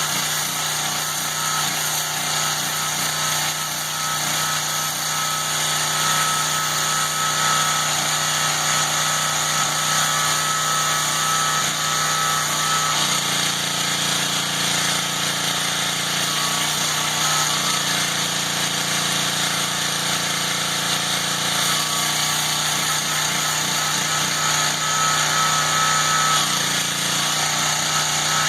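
Honda-engined 2600 PSI gas pressure washer running steadily, its engine note under a broad hiss of water spray. The lower engine tones shift for several seconds in the middle, then settle back.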